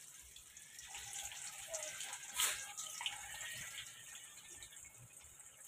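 Masala-coated tilapia pieces sizzling as they are laid into hot oil in a kadhai, a steady frying hiss with a brief louder flare about two and a half seconds in.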